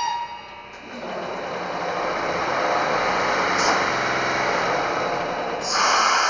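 Electric-locomotive running sound from the sound decoder of a Märklin/Trix H0 model of the DB class 151: a steady mechanical whirring that builds up about a second in and grows louder and brighter near the end.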